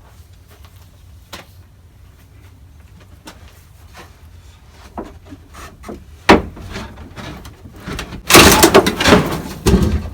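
Plastic storage crates handled against a wooden board frame: light clicks and knocks, one sharp knock about six seconds in, then a loud scrape lasting about a second and a half near the end as a crate slides into place.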